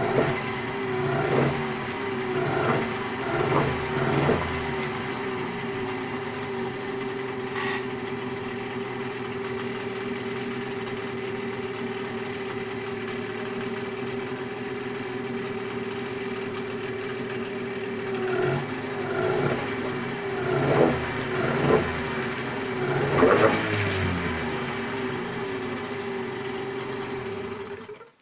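Small petrol engine idling steadily and revved briefly several times, near the start and again in the last third, running without sneezing after an overhaul. It cuts off abruptly at the very end.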